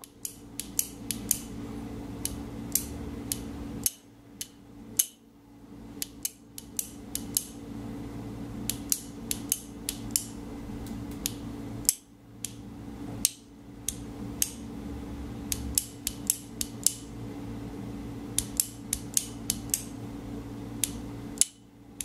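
A flashlight's switch clicking on and off in quick groups of sharp clicks, signalling SOS in Morse code, over a steady low hum.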